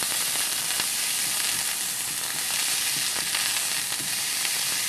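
Monkey head mushroom steak sizzling steadily in oil in a frying pan as a plastic slotted spatula presses it flat, squeezing its water out into the hot oil. There are a few light spatula clicks.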